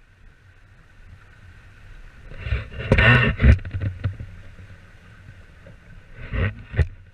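Water rushing and slapping against a small multihull sailboat's hull while under way, with a low rumble of wind on the microphone. A cluster of sharp knocks comes about two and a half to three and a half seconds in, and two more near the end.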